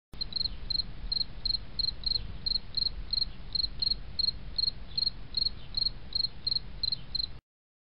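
High-pitched chirps repeating evenly about three times a second, cricket-like, over a steady deep rumble. Both stop abruptly shortly before the end.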